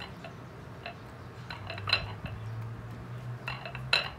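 A metal fork clinking and scraping against a plate as boiled eggplant is peeled and pressed: a few light clinks, the loudest about two seconds in and near the end, over a steady low hum.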